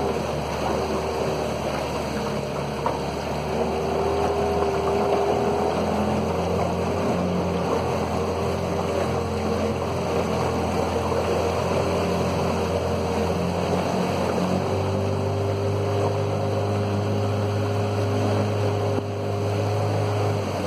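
Outboard motor driving a small aluminium boat along a river, running steadily with water rushing past the hull. The engine note steps up a little about two-thirds of the way through.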